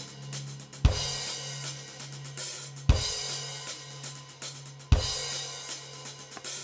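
Live rock drum kit (Tama) playing a groove with busy hi-hat and cymbals, heavy kick-and-crash accents about every two seconds, and a steady low note held underneath.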